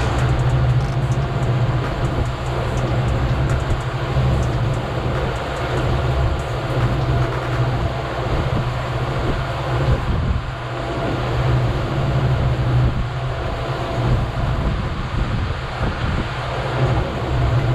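Outboard motor running steadily with the boat under way, a low drone under the rush of water past the hull and wind.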